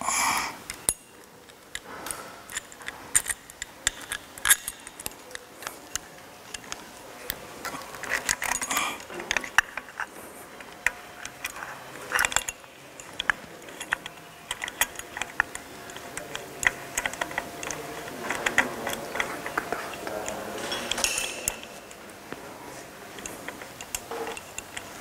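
Metal parts clicking and clinking as a timing belt tensioner is fitted by hand to an engine block: irregular small metallic taps throughout, with a few denser scraping rattles.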